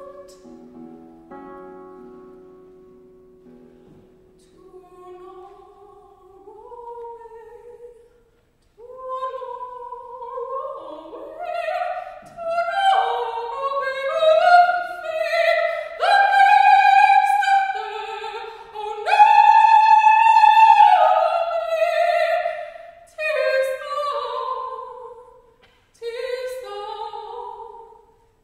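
A classical guitar chord rings and dies away, then a soprano sings in operatic style, mostly alone. She starts quietly and builds to loud held high notes about halfway through, with short breaths between phrases.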